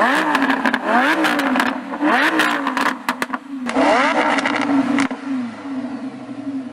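Lamborghini Huracán's V10 through an Akrapovič exhaust, blipped in a quick run of revs with sharp crackles and pops as the revs drop. It revs once more about four seconds in, then settles to a quieter idle.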